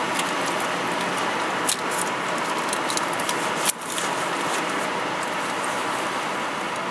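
Steady road noise of a moving car heard from inside the cabin: tyre and wind noise, with a brief dip about three and a half seconds in.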